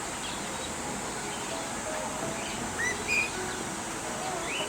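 Birds chirping: a few short rising chirps, two louder ones about three seconds in, over a steady high hiss.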